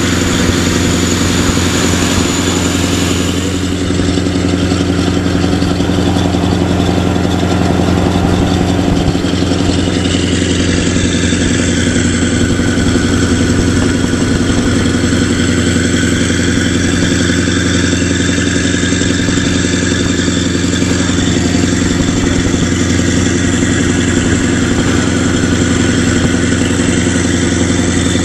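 Scania V8 truck engine running at a steady cruise through a loud open-pipe exhaust, a deep even drone with no change in pitch, heard from a car driving alongside.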